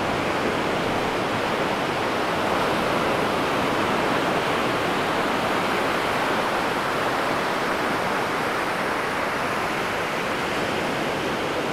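Ocean surf breaking along a sandy beach, a steady even roar of waves.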